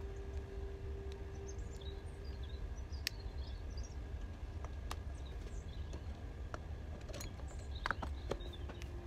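Scattered light metallic clicks and taps as an aluminium valve cover is handled and set down over the studs onto a motorcycle cylinder head. The taps are sparse at first and closer together near the end, over a steady low hum.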